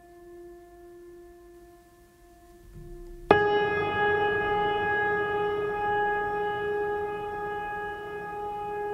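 Background music of long held notes: a soft steady note, then a sudden loud sustained note about three seconds in that slowly fades.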